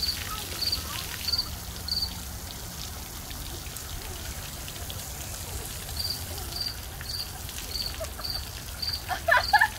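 Water splashing and trickling, with a short high chirp repeating about every two-thirds of a second through much of it. A brief louder burst comes near the end.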